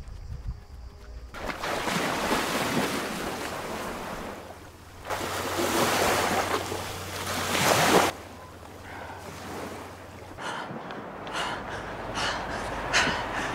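Seawater splashing and surf as people move through shallow sea water: loud washes of noise that cut in and out abruptly, then a run of short splashes from about ten seconds in.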